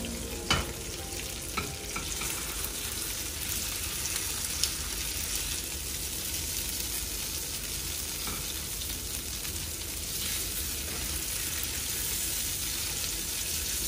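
Leftover masala, onions and oil sizzling steadily on a hot tawa while a spatula scrapes and stirs them together. A few sharp clicks of the spatula against the pan come in the first five seconds.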